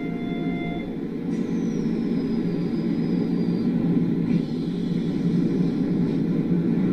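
Electric train running noise: a steady rumble, with a thin high whine that falls slowly in pitch starting about a second in.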